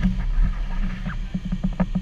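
Steady low hum of an inflatable costume's blower fan, with the suit's fabric rustling and a quick run of soft knocks about a second and a half in.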